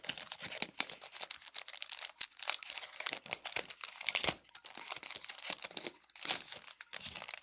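Foil wrapper of a Pokémon mini booster pack being torn open and crinkled: a dense run of crackles with louder rips about four and six seconds in.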